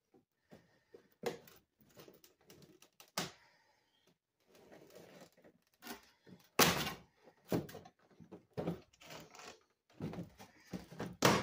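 Clear plastic clamshell packaging being pried open at its stapled top: a string of irregular sharp plastic clicks and knocks with some rustling between them, the loudest knock about six and a half seconds in.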